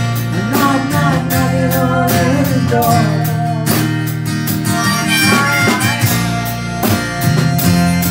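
Live band playing a slow rock number: acoustic guitar strumming over electric bass and a drum kit keeping a steady beat, with a wavering lead melody on top.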